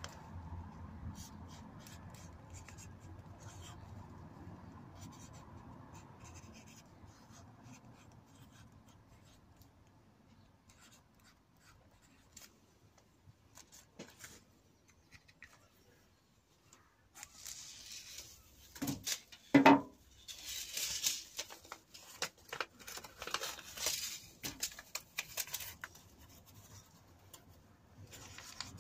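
Marker pen writing on a plastic plant label, then handling noises: seed packets rustling and plastic plant labels and module trays scraping and clattering, with one sharp knock a little past the middle.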